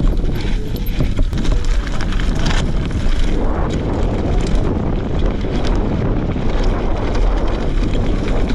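Wind rushing over the action camera's microphone, with the rumble and rattle of a mountain bike descending a dirt trail at speed. Tyres crunch over loose gravel, and scattered clicks and knocks come from the bike.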